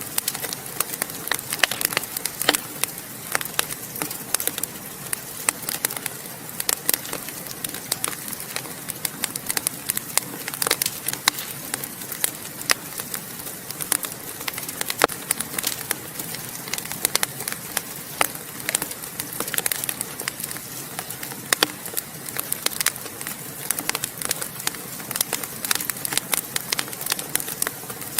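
Wood fire crackling in a fireplace: a dense, irregular stream of small pops and snaps over a steady hiss.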